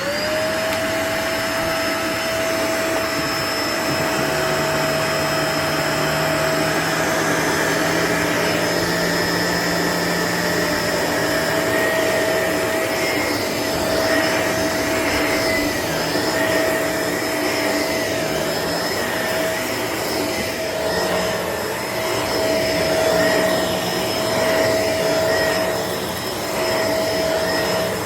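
White Shark upright vacuum cleaner running continuously during a floor mess test, a loud steady motor whine. The sound wavers somewhat in the second half as the vacuum works.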